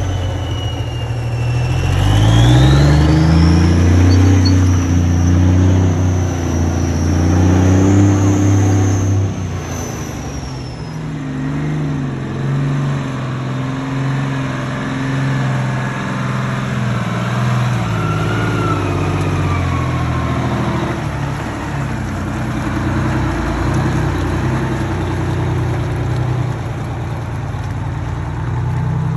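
Heavy truck engine revving up about two seconds in, with a high whine that climbs along with it. The engine then eases off at around ten seconds and runs on at a lower, uneven pace.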